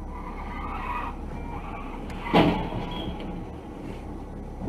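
Steady engine and road hum of a moving car, recorded inside the cabin by a dashcam, with one sharp thump about halfway through.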